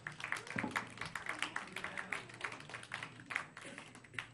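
Scattered hand clapping from a small audience, several irregular claps a second, thinning out near the end.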